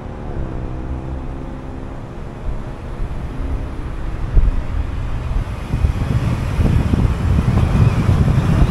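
Car driving: engine hum whose pitch shifts over the first few seconds, then road and wind noise growing steadily louder from about halfway through, with one sharp knock about four seconds in.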